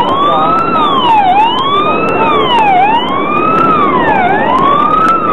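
Emergency vehicle siren wailing, its pitch sweeping up and down about once every second and a half, over a steady rushing noise.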